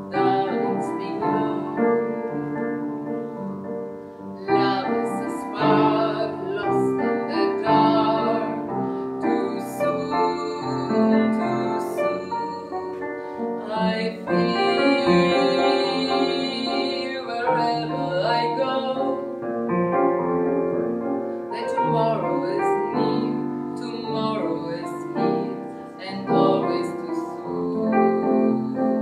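A woman singing a Broadway show tune to piano accompaniment, with a long held note sung with vibrato about halfway through.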